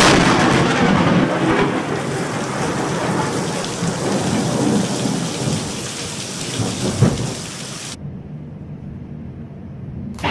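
A loud, close thunderclap cracks at the start and rolls into a long rumble over heavy rain, with another sharp crack about seven seconds in. About eight seconds in the sound abruptly drops to a quieter, duller rain and rumble.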